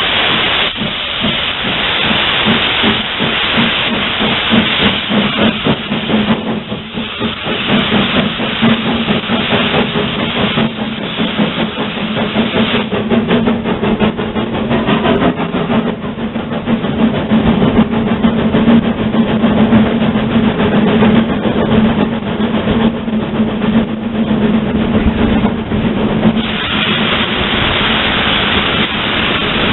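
0-8-0 steam tank locomotive heard from its cab while under way: a steady hiss of steam over the uneven beat of the exhaust, with a low drone through the middle. Near the end the hiss grows louder as steam blows out low at the front of the engine.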